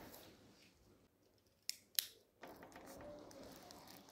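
Two sharp clicks close together about halfway through, then the faint, steady scratch of a ballpoint pen writing on a paper planner page.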